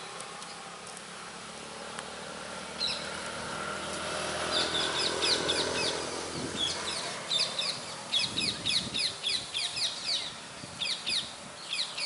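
Small birds chirping in quick runs of short, high notes, thickest from about four seconds in.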